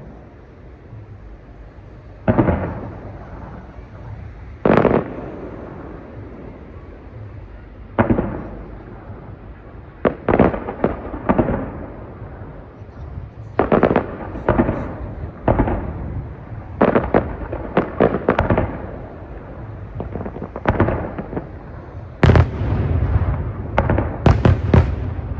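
Aerial fireworks shells bursting overhead: sharp booms, each trailing off in a rolling echo, at first every couple of seconds and then coming faster, ending in a rapid cluster of sharp bangs.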